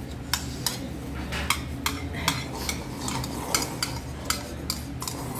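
Thin metal utensil clinking and scraping against a bowl, about two or three sharp clinks a second, as the last of a bowl of noodle soup is stirred and scooped out.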